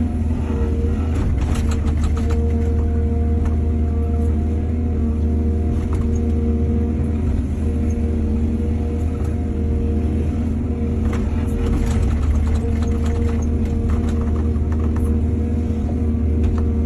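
Excavator's diesel engine running steadily at working revs, with two spells of sharp clattering, about a second in and again past the middle, as the machine works soil.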